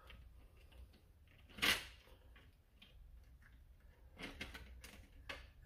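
Plastic parts of an X-Shot Longshot foam dart blaster being handled and fitted into the opened shell: a single sharp clack about one and a half seconds in, then a short run of quick clicks and taps near the end.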